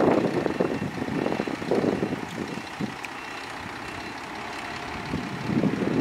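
Dump truck's engine running while its tipper bed is raised to dump a load of soil, with a faint steady whine in the middle. Wind buffets the microphone at the start and again near the end.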